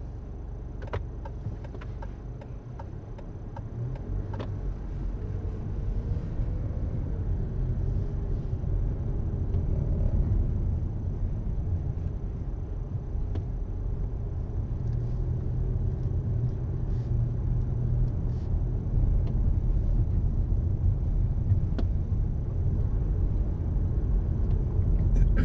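Car driving along a town street, heard from inside the cabin: a low engine and road rumble that grows louder over the first ten seconds or so as the car picks up speed, then holds steady. A few faint clicks are heard.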